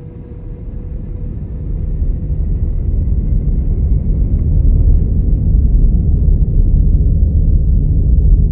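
A deep rumble swelling steadily louder for about five seconds, then holding, with a faint steady hum underneath that fades out as the rumble grows.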